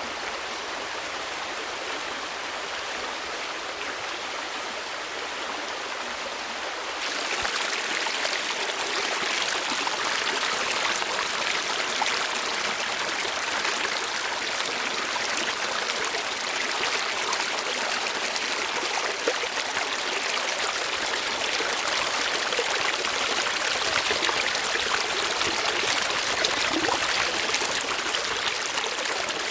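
Steady rushing of flowing water, like a stream. About a quarter of the way in it abruptly becomes louder and brighter, then stays steady.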